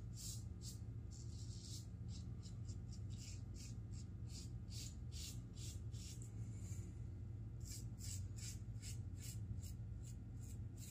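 A double-edge safety razor (Raw Shaving, mild plate) scraping through lathered stubble in a quick series of short, crisp rasping strokes.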